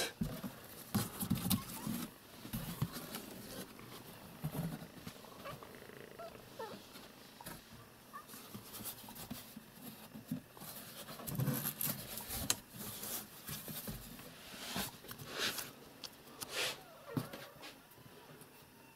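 Cardboard flaps of a computer box being opened and handled: quiet scattered rustling and light knocks, with a few short low sounds from the cat inside.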